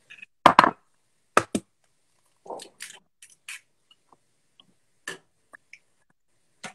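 A string of short, sharp clicks and knocks with silent gaps between, the loudest about half a second in: eggs being cracked on the rim of a small bowl and the bowl knocking against a saucepan as eggs are tipped into boiling water for poaching.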